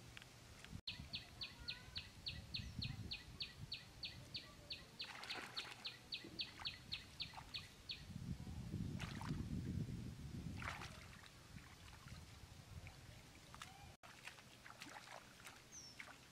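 Bare hands groping and splashing in shallow muddy water. Through the first half a bird repeats a short high note about three or four times a second. A low rumble swells around the middle.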